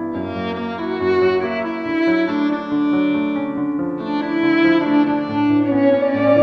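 A string trio of two violins and cello plays a slow ballad, the first violin carrying the melody in long bowed notes over a held cello line. The second violin comes in near the end.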